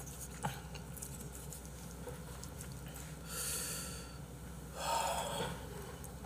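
A man eating a bowl of haejangguk with chopsticks: a light click about half a second in, then two short noisy breaths and mouth sounds as he takes food, about three and five seconds in.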